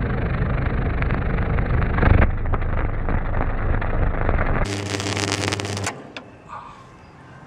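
High-voltage arc from a microwave-oven transformer buzzing with a low mains hum and crackling, loudest about two seconds in. The arc cuts off a little before six seconds in, leaving a much quieter background.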